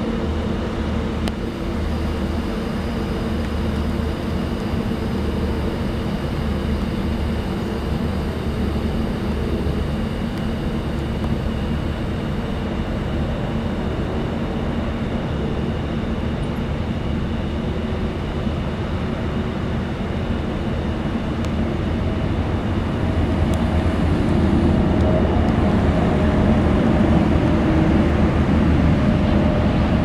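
Steady low hum of vehicle engines running, with steady high-pitched insect calls over it; the highest of these stops about 12 seconds in, and the hum grows a little louder near the end.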